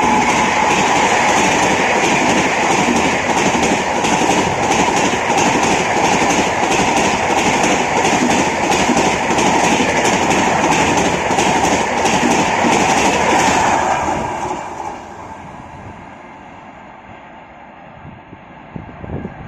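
Howrah Rajdhani Express coaches rushing past at speed, their wheels beating out a rapid, regular clickety-clack over the rail joints. The noise falls away about fourteen seconds in as the last coach goes by, leaving a low fading rumble.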